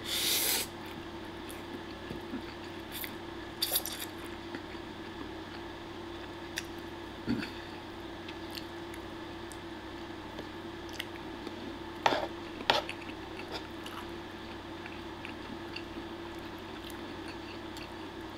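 A man slurping up a forkful of spaghetti peperoncino, a loud suck in the first half-second, then chewing, with a few sharp clicks of a metal fork against a wooden plate as he twirls more pasta, two of them close together about twelve seconds in. A steady low hum runs underneath.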